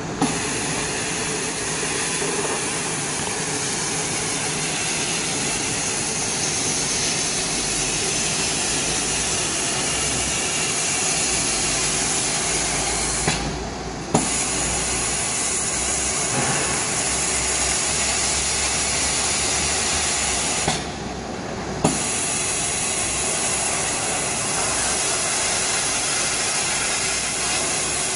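Laser die-board cutting machine running while it cuts plywood: a steady, loud hiss of blowing air. The hiss drops away twice for about a second, about 13 and 21 seconds in, and each time comes back with a click.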